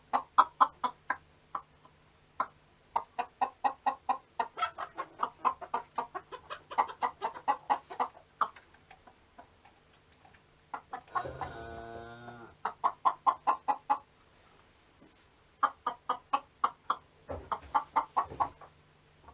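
Chickens clucking in quick runs of short, rapid clucks with pauses between, and one longer drawn-out call falling in pitch about eleven seconds in.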